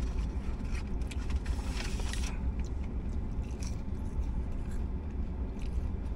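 A man chewing a mouthful of crispy chicken sandwich and Whopper, with crackly clicks for the first two seconds or so and quieter after, over a steady low rumble inside a car.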